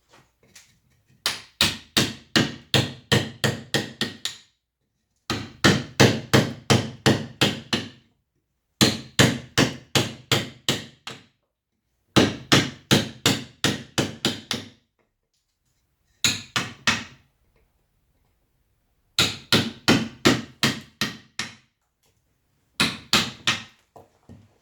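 Mallet striking a carving chisel into wood, in quick steady runs of sharp taps at about three to four a second, broken by short pauses seven times.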